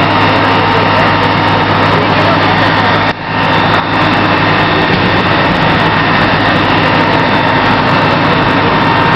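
Fire truck engine running steadily with a constant hum, dipping briefly about three seconds in.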